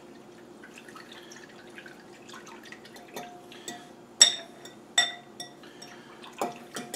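Yeast being stirred into warm water in a glass bowl: faint liquid swishing, then from about three seconds in several ringing clinks of the utensil against the glass, the loudest just after four seconds.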